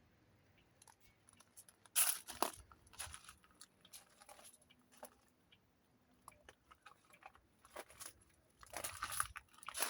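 Footsteps crunching on wet granite gravel, a few irregular steps with the loudest about two seconds in and a cluster near the end.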